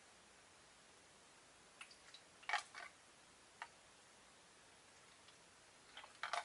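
Near silence: quiet room tone with a few faint, short clicks and knocks, a small cluster about two and a half seconds in and another near the end.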